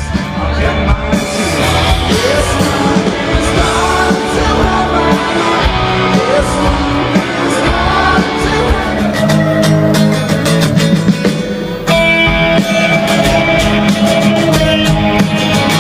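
Rock music with singing, guitar and drums. It cuts abruptly to a different passage about twelve seconds in.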